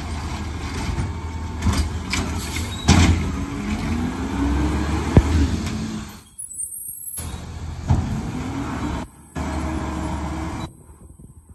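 Natural-gas-powered McNeilus ZR automated side-loader garbage truck working the curb: the engine runs with a rising then falling hydraulic whine as it works, and several sharp knocks and bangs of the carts and lifting arm. The sound cuts out briefly a few times in the second half.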